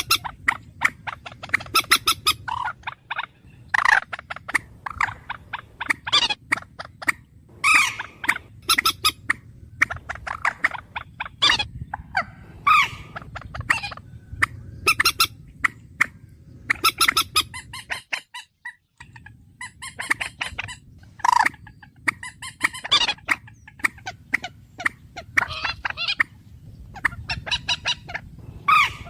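Bird calls played in a dense, repeating series of short, pitched calls, with a brief gap of silence about two-thirds of the way through.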